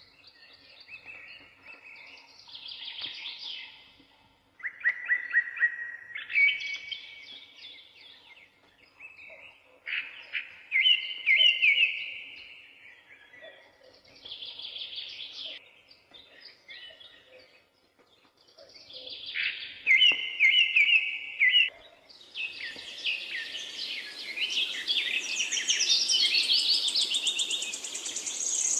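Birds chirping and singing in short phrases with brief pauses between them; about two-thirds of the way through, the chorus thickens into several birds at once over a steady hiss.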